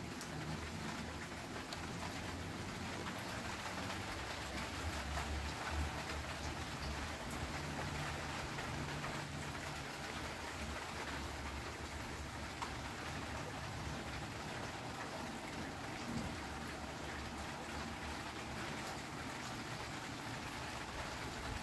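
Steady rain falling, an even hiss with light patter, and a low rumble coming and going through the first half.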